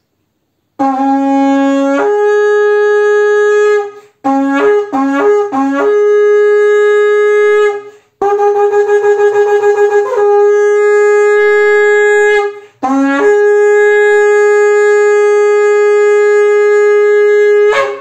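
A 133 cm antelope-horn shofar blown in a series of long blasts, each stepping up from a lower note to a higher one. About four seconds in comes a run of short broken notes, and in the middle a fluttering, wavering stretch. The last blast is held for about five seconds.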